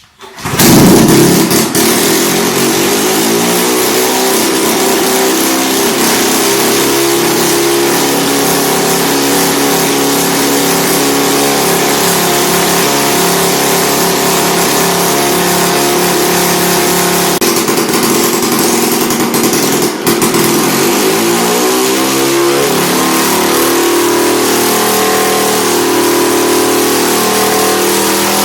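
Vintage Victa 18 lawn mower's two-stroke engine starting up abruptly and running loud and steady. Its speed settles over the first few seconds, and about twenty seconds in it falters briefly, then dips and picks back up before running steady again.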